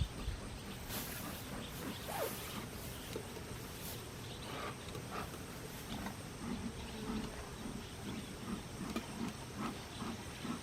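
Hand-pumped bee smoker being worked in a series of short puffs, with creaks from the bellows, over a low rumble of wind on the microphone.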